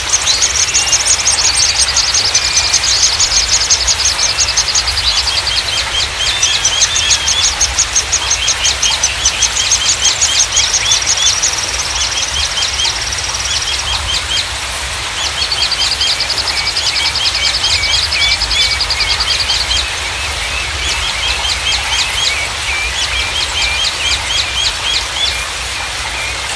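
Small songbirds singing: fast trills of high repeated notes in phrases several seconds long, with twittering notes between them, over a steady rushing background noise and low rumble.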